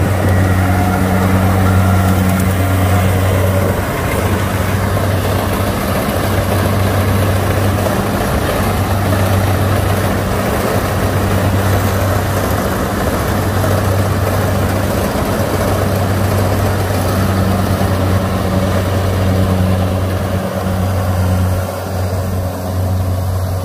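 Kubota DC70 rice combine harvester running steadily while it cuts and threshes rice: a constant low diesel engine hum with the noise of the machinery on top, getting a little quieter near the end as the machine moves away.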